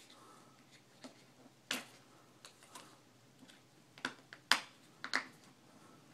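Sharp clicks as the front cover is pressed and snapped back onto a Total Knee 2100 prosthetic knee: one click nearly two seconds in, then three more in quick succession about four to five seconds in.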